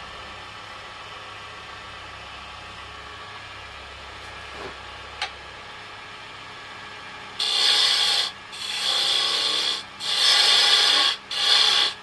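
Beech wood being worked on a running wood lathe: a steady low hum, then from about seven seconds in four harsh rasping strokes, each about a second long with short gaps between.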